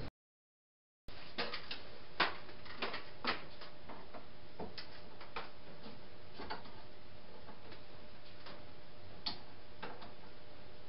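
Irregular small clicks and taps of hands working on a ceiling light fixture overhead, coming after about a second of silence. They are thickest for the next couple of seconds, then sparser, over a faint steady hum.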